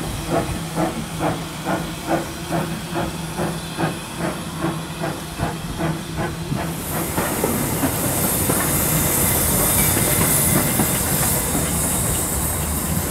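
A steam train moves past at low speed with an even beat of about three a second. About seven seconds in, a loud steady hiss of steam from a small saddle-tank locomotive takes over.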